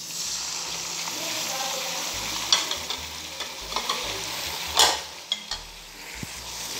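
Sliced tomatoes tipped into hot oil with frying onions in a karahi, setting off a steady, louder sizzle. A spatula stirs and scrapes in the pan with a few sharp knocks, the loudest about five seconds in.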